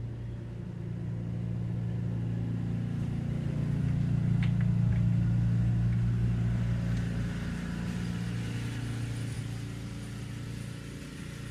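A motor vehicle's engine running steadily, growing louder toward the middle and then fading away.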